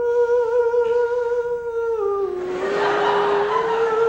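Male a cappella voices holding a long hummed note, which steps down in pitch about two seconds in and then returns, with a brief rush of noise underneath around the middle.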